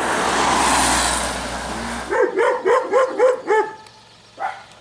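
A car passes on wet asphalt with a swelling tyre hiss. Then a dog barks about six times in quick succession, with one more bark near the end.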